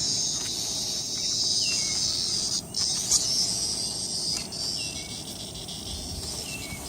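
Cicada buzzing, a steady high-pitched drone that breaks off briefly just under three seconds in and then carries on a little fainter.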